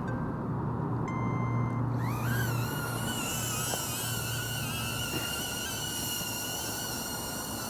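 A short electronic beep about a second in, then a small camera drone's propellers spin up about two seconds in with a rising whine that settles into a steady, slightly wavering whine as it takes off in orbit mode. A low hum sits underneath for the first two and a half seconds.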